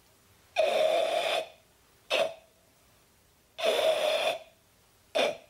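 Forceful karate breathing, a kiai-style ibuki breath: two long, hissing exhalations pushed out through the open mouth with a throaty edge. Each is followed by a short sharp breath.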